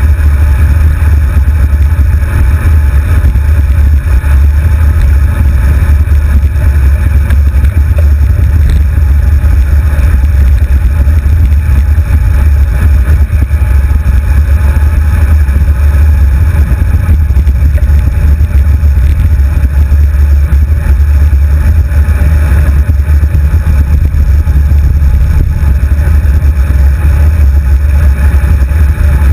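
Wind buffeting the microphone of a handlebar-mounted GoPro HD2 on a moving road bicycle: a loud, steady low rumble with a faint hiss above it.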